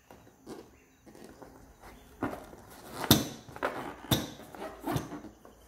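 Hands handling and turning a filled rubber balloon: irregular rubbing and tapping sounds, the loudest a sharp knock about three seconds in and another about a second later.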